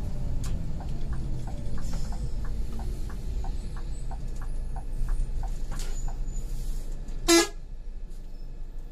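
Scania bus running on the road with a steady low rumble, and a run of light, quick, evenly spaced ticks in the first half. A single short horn toot sounds about seven seconds in.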